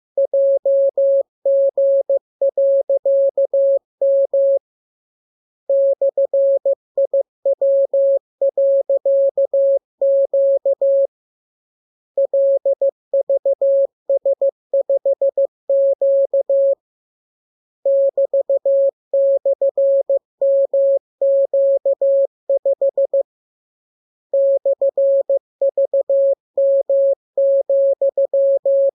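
Morse code sent as a single pure beeping tone, keyed rapidly on and off in dots and dashes. It comes in long runs of characters with a pause of about a second between runs: a practice radiogram of the letters being learned.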